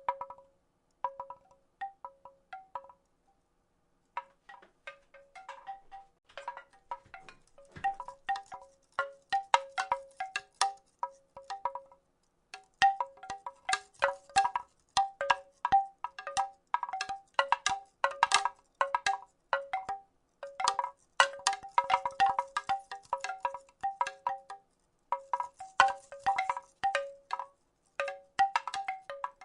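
Wooden rattle shaken in irregular clusters of short, hollow wooden clacks, each ringing briefly at a clear pitch. The clacks are sparse at first, stop briefly about three seconds in, then come thicker and louder.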